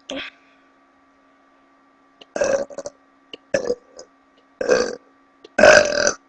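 A girl burping loudly several times in a row: one short burp at the start, then four longer ones, the last the longest and loudest.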